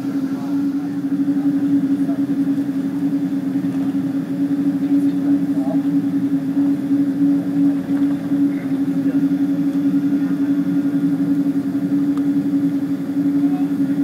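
Cabin drone of a Boeing 777-200 with Pratt & Whitney PW4077 engines at low taxi power: a steady hum with a held low tone that does not rise.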